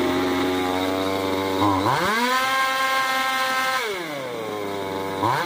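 Two-stroke chainsaw engine idling, then revved up about two seconds in, held at high speed, let back down to idle, and revved again near the end. Fitted with a new spark plug, it takes the throttle without stalling.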